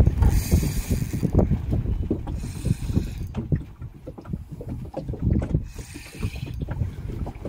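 Ultralight spinning reel being cranked in about three short bursts of whirring, winding in a small hooked spotted grunter. Underneath runs a choppy low rumble of wind on the microphone and water against the boat.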